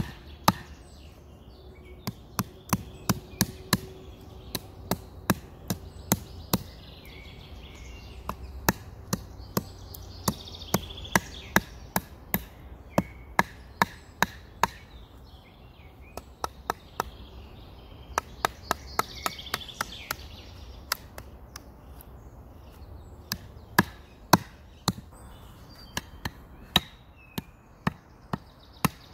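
Wooden baton knocking on the spine of a knife driven into a birch log, splitting it in short runs of quick, sharp strikes with brief pauses between them.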